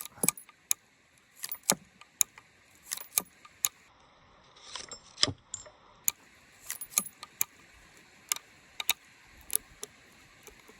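Sharp metallic clicks and clinks of a Heritage Rough Rider .22 single-action revolver being unloaded at half cock: the cylinder is turned and the spent .22 Magnum casings are pushed out one by one. The clicks come singly or in small clusters at uneven intervals.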